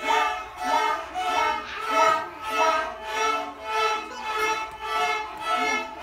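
A group of children playing violins together with their teacher, bowing a simple tune in a steady rhythm of separate notes.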